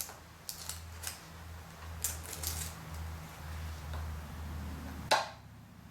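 Hand tools and small plastic parts handled on a workbench: a scattering of light clicks and taps, with a sharper click about five seconds in, over a low pulsing hum that stops at that click.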